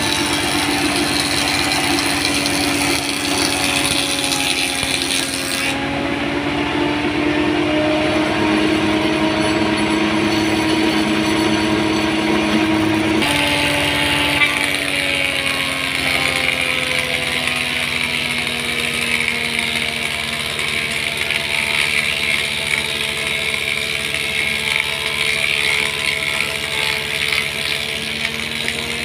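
Belt-driven wood thickness planer running as red meranti boards feed through it. It makes a steady machine whine whose pitch drifts slowly down and back up.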